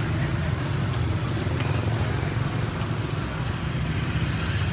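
Steady low rumble of street traffic with an even hiss over it.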